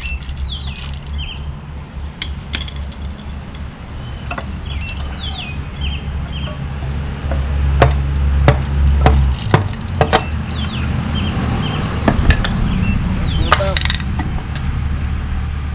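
Scattered metal clinks and knocks of hand tools working an engine's front cover loose, with a cluster of sharper knocks in the second half.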